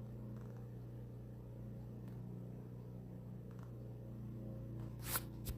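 Steady low electrical hum with a few faint clicks, and two short sharp clicks near the end.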